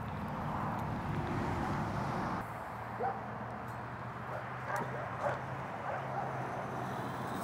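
A dog whimpering in a few short, rising whines over a steady low hum.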